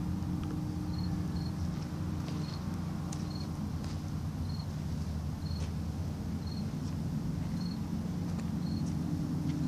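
Outdoor background: a steady low rumble throughout, with short high-pitched chirps in pairs recurring about every second and a few faint clicks.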